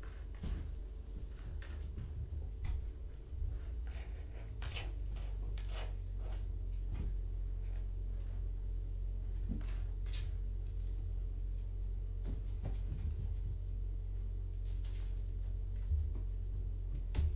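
Kittens playing: scattered soft knocks, thuds and scuffles of small paws landing and scrambling, a dozen or so spread irregularly, over a steady low hum.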